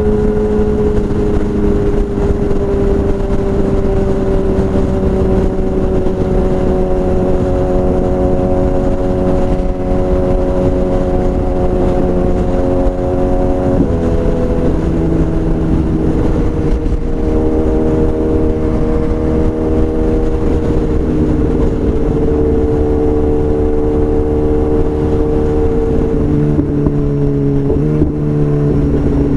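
BMW S1000RR inline-four motorcycle engine with a full Akrapovič exhaust, running at a steady, loud engine speed whose pitch sinks slowly. The pitch shifts abruptly about halfway through and changes again near the end.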